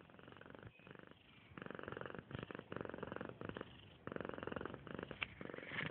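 Snoring: a fast, rattling vibration on each breath, coming in long bursts of a second or more that grow louder about a second and a half in.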